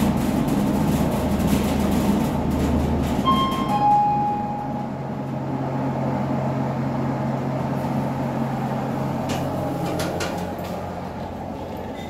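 Fujitec passenger lift car running in the shaft with a low rumble and hum, then a two-note arrival chime, high then lower, about three seconds in, as the ride noise drops away. A quieter steady hum follows, with a few clicks near the end.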